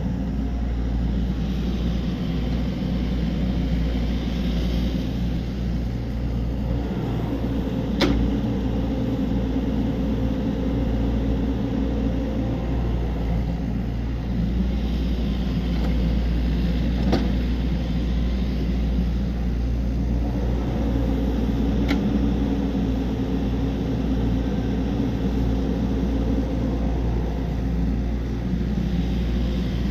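Excavator's diesel engine running steadily under load as it works, with three sharp metallic clanks spread through.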